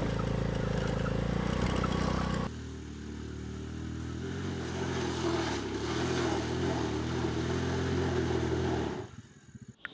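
Honda Dio scooter's engine running: first steadily while riding along a lane, then, after an abrupt change, lower and quieter as it is ridden slowly down a grassy slope. The sound cuts off about a second before the end.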